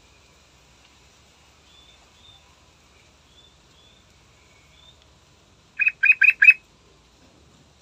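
Yellow-vented bulbul calling a quick burst of four short, loud notes about six seconds in, with a few faint, thin high chirps before it.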